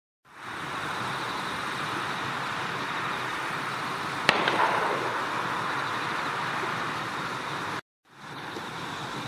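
Steady outdoor background hiss with no distinct source, fading in at the start. One sharp click comes a little over four seconds in, and the sound cuts out completely for a moment near the end before fading back in.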